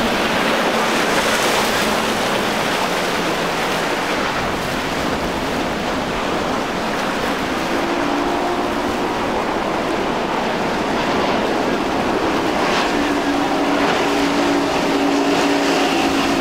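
Steady rush of boat wake, surf and wind on the microphone. About halfway through, the steady drone of a powerboat's twin Mercury 225 hp outboard engines comes in over the water noise.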